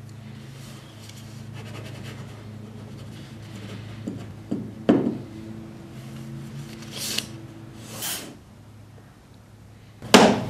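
Rustling and rubbing over a low steady hum, with a couple of soft knocks about halfway through. Near the end a hand slaps a paper check down flat on a table, the loudest sound.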